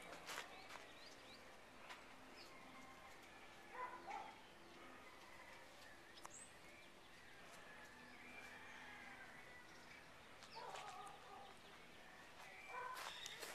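Near silence: faint outdoor background with a few faint, distant animal calls about 4 and 11 seconds in.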